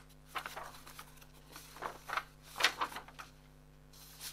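Paper pages of a model kit's instruction booklet being handled and turned: a string of short, soft rustles, the loudest a little over halfway through, over a faint steady hum.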